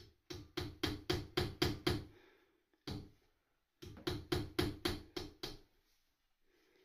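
Hand hammer striking in quick runs of about five blows a second: a run of roughly eight blows, a single blow, then another run of about eight.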